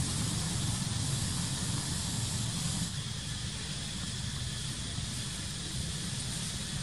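Steady outdoor background noise: an even hiss with a low rumble underneath, dropping slightly about three seconds in.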